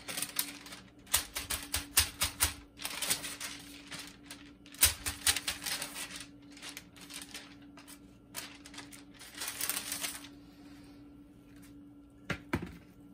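A sheet of paper crinkling and rustling in the hand in repeated crackly bursts, then a couple of light knocks near the end.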